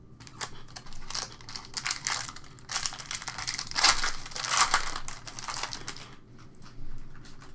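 Foil wrapper of a trading-card pack being torn open and crumpled by hand: a dense crinkling and crackling for about six seconds, loudest in the middle, stopping shortly before the end.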